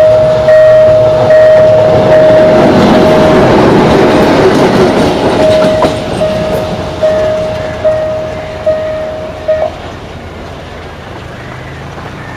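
Level-crossing warning bell ringing in steady single strokes, about one every 0.8 s, and stopping near ten seconds in. Under it a Romanian CFR Class 60 (LDE 060-DA) Sulzer diesel-electric locomotive rumbles past, its engine and wheel noise swelling over the first few seconds and then fading.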